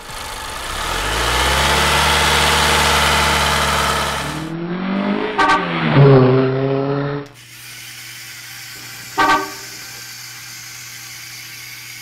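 Car sound effects: an engine-like noise swells up, then a horn sounds with its pitch sliding up and down. A steady low hum follows, with one short horn toot near the end.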